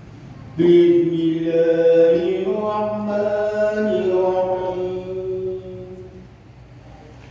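A man's voice chanting the adhan, the Islamic call to prayer, into a microphone. It is one long ornamented phrase that starts just under a second in, moves through several pitches, and fades away about six seconds in.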